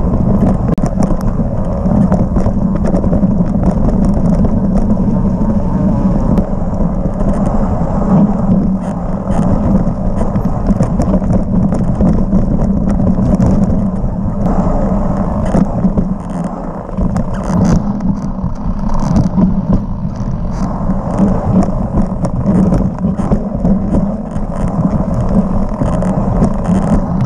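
Mountain bike ridden fast down a dirt forest singletrack, heard from a camera on the rider: steady wind rush on the microphone with tyre noise on dirt and the bike rattling over bumps.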